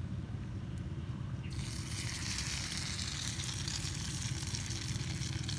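Food sizzling on a hot cooking rock: a loud hiss starts suddenly about one and a half seconds in and holds steady, over a low rumble.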